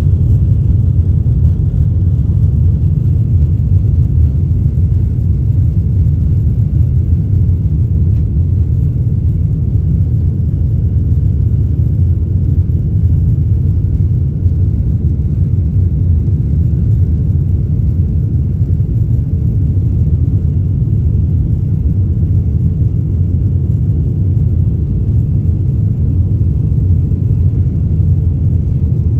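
Jet airliner cabin noise in flight: a steady, low rumble of the engines and the airflow over the fuselage, heard from inside the cabin at a window seat.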